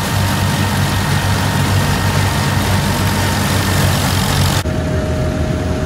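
Farmall tractor engine running steadily while belt-driving a threshing machine, with the thresher's working noise mixed in. About four and a half seconds in, the sound cuts abruptly to another engine running with a steady high whine.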